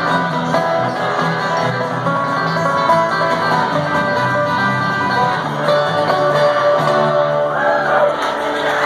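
Live bluegrass band playing: banjo, acoustic guitars and electric bass together, with notes held near the end.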